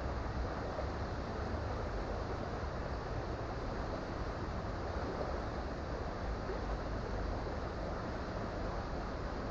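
Creek water flowing, a steady, even rush with no change in level.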